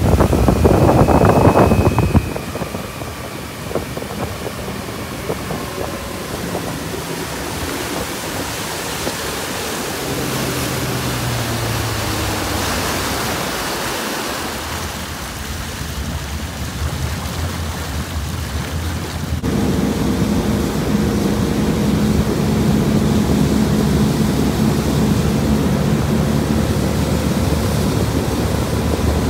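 A motorboat under way: water rushing and splashing along the hull, loudest in the first two seconds, with wind on the microphone. About two-thirds of the way through, the sound changes suddenly to the boat's steady engine hum over the wash.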